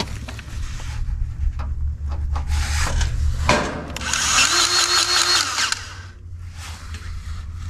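Battery-powered Ryobi grease gun's motor running for about two seconds, about halfway through, pumping grease into a zerk fitting on a zero-turn mower's deck-lift pivot. Before it come a few clicks and knocks as the metal coupler is held onto the fitting.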